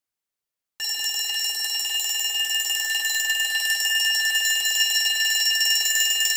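Alarm clock bell ringing continuously in a fast, steady trill, starting about a second in.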